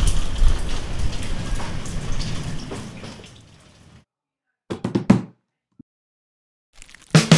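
Tap water running into a stainless steel sink over hands being rinsed, fading away about three to four seconds in. Then a few short knocks around five seconds in, and music starts at the very end.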